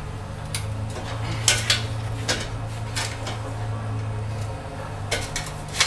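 Metal clanking and clinking, about half a dozen sharp knocks spread through, as steel exhaust pipe sections and their hanger hardware are handled and fitted together. A steady low hum runs underneath.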